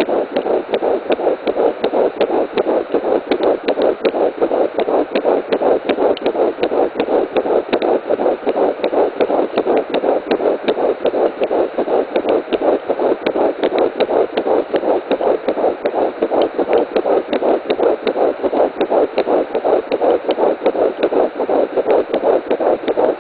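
Fetal heartbeat at 10 weeks 5 days of pregnancy, heard as Doppler ultrasound audio: a rapid, even pulse of close to three beats a second, steady throughout.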